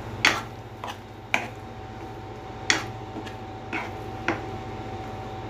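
Metal ladle stirring a thick lentil-and-luffa kootu in a pot, with several sharp irregular clicks as the ladle knocks against the pot, over a faint steady hum.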